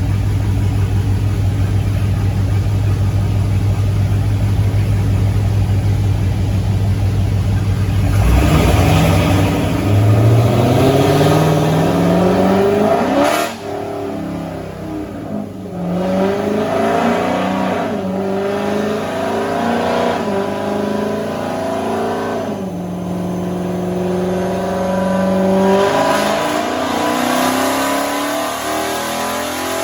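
Car engine with its catalytic converters removed, idling and then accelerating hard on a chassis dyno pull. About eight seconds in the revs start climbing, falling back at each of several upshifts about every two to three seconds. The note then holds steady briefly before climbing again near the end.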